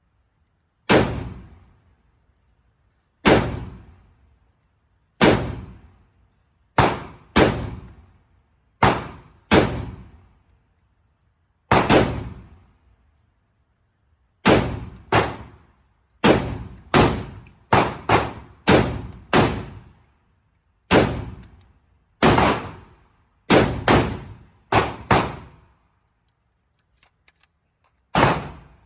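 Gunshots fired one at a time, about two dozen sharp reports at uneven intervals, coming faster through the middle with several in quick succession, each dying away within about a second.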